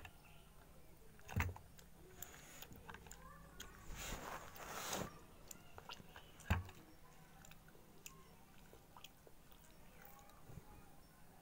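Faint mouth and chewing noises of a small child eating meatballs and noodles by hand, with scattered small clicks, two sharp knocks about one and a half and six and a half seconds in, and a short hiss near the middle.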